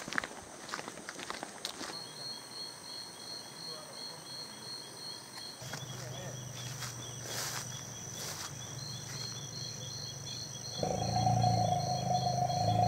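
Night insects chirping in a steady pulsing rhythm, about three or four chirps a second. A low steady drone comes in under them and grows louder near the end.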